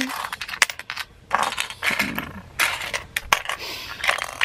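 Metal pins, badges and keychain charms clinking against each other and a wooden tabletop as they are picked up and set down: a string of sharp clicks with a few short scraping slides.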